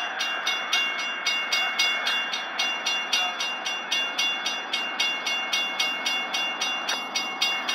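Railroad grade-crossing warning bell ringing in an even rhythm of about three strikes a second, signalling an approaching train as the crossing gates come down.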